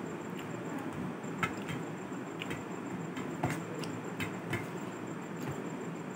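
Fingers mixing rice and chicken curry on a steel plate: a handful of light clicks and taps against the metal, the sharpest about a second and a half and three and a half seconds in, over a steady background hiss.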